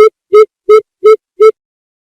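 Coucal's lure call: a series of deep, evenly spaced hoots, about three a second, that stops about a second and a half in.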